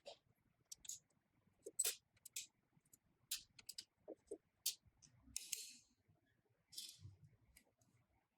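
Light metallic clicks and clinks of the sewing machine's pressing frame and its fixing screws being worked loose and lifted off by hand, with two short scrapes about five and a half and seven seconds in.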